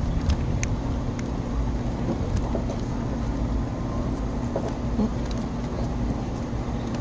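A man biting and chewing a burger, with small wet mouth clicks, over a steady low mechanical rumble and hum.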